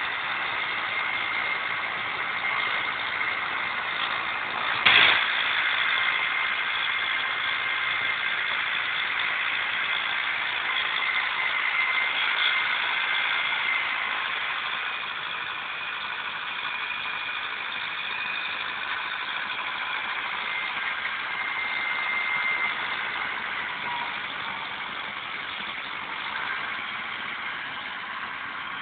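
Renault 681 S tractor's diesel engine running steadily under load while pulling a power harrow, with one sharp knock about five seconds in.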